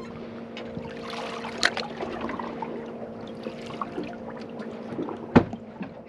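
Steady low hum aboard a stopped fishing boat, with faint water sloshing against the hull. There is a light click about a second and a half in and a single sharp knock about five seconds in.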